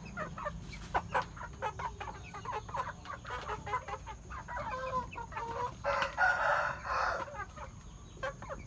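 Chickens clucking in many short, choppy calls, with a longer, louder call about six seconds in.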